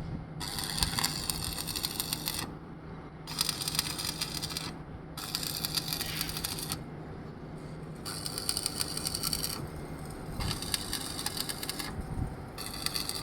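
Electric arc welding: the arc crackles and sputters in about six short runs of one to two seconds each, with brief pauses between them, over a low steady hum in the first half.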